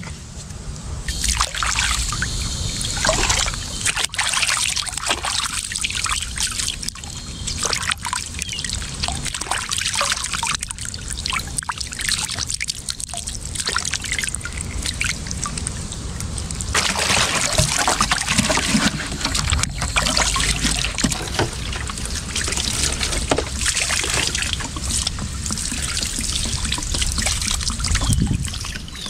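Water trickling and splashing as a freshly cleaned snook is rinsed by hand, the splashing uneven and somewhat busier in the middle.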